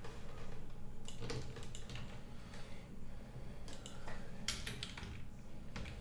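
Computer keyboard typing in short bursts of keystrokes, one cluster about a second in and another around four to five seconds in.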